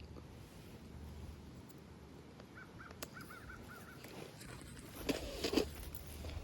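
A bird calling: a quick run of about seven short notes. About five seconds in come a few louder knocks, over a steady low rumble.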